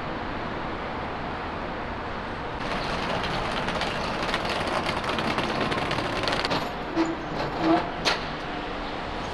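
City street ambience: steady traffic noise that grows a little louder about three seconds in, with two short tones and a sharp click near the end.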